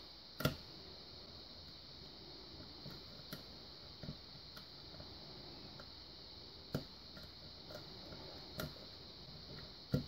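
Small, sharp metallic clicks and ticks of a lock pick and tension wrench working the pins of a five-pin Chris Ahrens pin-tumbler lock under very light tension, coming at irregular intervals with the loudest about half a second in, over a faint steady hiss.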